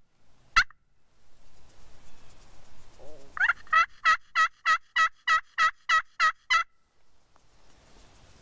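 Turkey friction pot call worked with a wooden striker, imitating a hen. One sharp cluck comes about half a second in. A little past a third of the way in, a run of about eleven evenly spaced yelps follows, about three a second, then stops.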